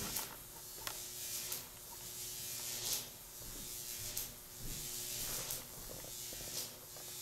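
A steady electrical buzz and hum, with a soft hiss that swells and fades about once every second and a bit.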